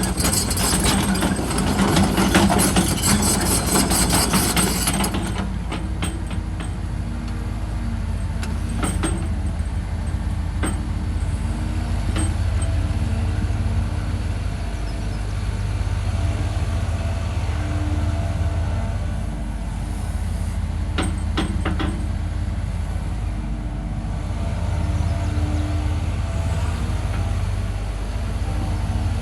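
Diesel engine of a CAT 313FL hydraulic excavator running steadily. It is louder and harsher for the first five seconds, then settles to an even drone with a few sharp clicks or knocks.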